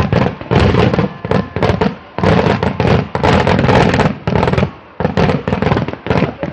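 Fireworks display going off in a dense, rapid barrage: a fast crackle of sharp bangs, many a second, in loud clusters broken by brief lulls about two and five seconds in.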